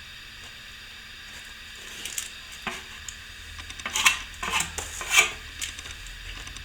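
A small metal scraper scraping a firmed-up plaster patch back flat, in a few short scratching strokes, the loudest cluster about four to five seconds in.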